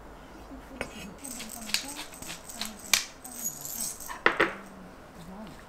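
A series of sharp clinks and taps of kitchenware against a glass food container, the loudest about three seconds in and a close pair near four and a half seconds.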